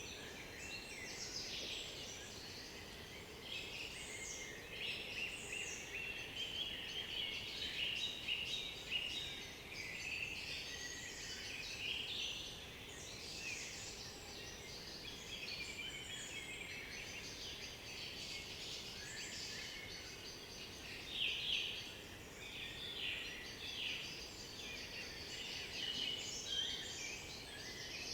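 Several songbirds singing at once, a dense chorus of overlapping chirps, trills and whistled phrases, with a few louder phrases standing out now and then.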